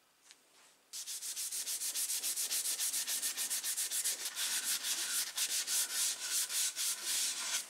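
Maroon Scotch-Brite abrasive pad rubbed by hand in quick back-and-forth strokes over a billhook's handle as a final sanding, a scratchy hiss at several strokes a second. It starts about a second in and stops just before the end.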